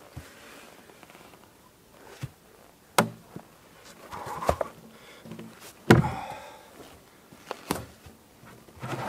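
A heavy peeled log being manhandled onto a wooden sawhorse: a series of wooden knocks and thuds as the log bumps and settles on the timber support, with short stretches of scraping between them. The two loudest thuds come about three and six seconds in.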